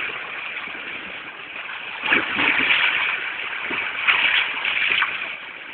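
Shallow sea waves washing in around rocks and wading legs, a steady rush of water that swells louder twice.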